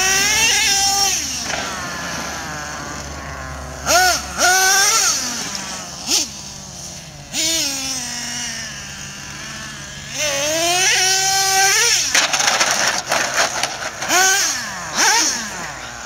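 Traxxas Revo 3.3 nitro RC truck's small two-stroke nitro engine revving up and dropping back in about five bursts as the truck is driven, its high whining pitch rising and falling with each burst.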